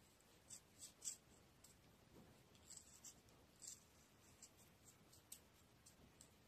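Faint, irregular snicks of a small carving knife cutting petals into a raw carrot, about a dozen short crisp ticks.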